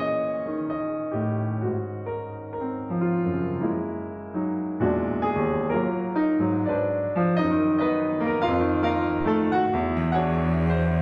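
Blüthner grand piano and bowed cello playing classical music together, with long sustained low notes. The music swells suddenly louder about five seconds in.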